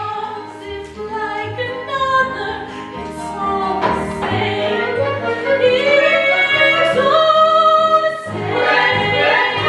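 Singing from a live stage musical: several voices sing together over instrumental accompaniment with a repeating low bass line, growing louder partway through.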